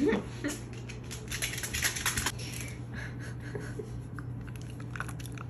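Small clicks, taps and rustles of objects being handled on a table, busiest about one to two seconds in, over a steady low hum.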